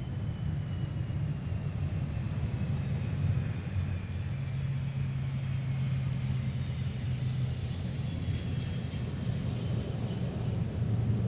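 Airbus A330-302 airliner with General Electric CF6-80E1 turbofans, running as it lands: a steady low rumble with a faint high engine whine that slowly falls in pitch.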